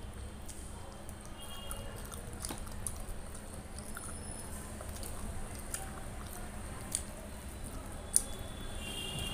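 Close-miked eating sounds: wet chewing and squishing of food, with many small clicks and ticks as fingers pick at fried fish on a steel plate, and one sharp click about eight seconds in. A steady low hum runs underneath.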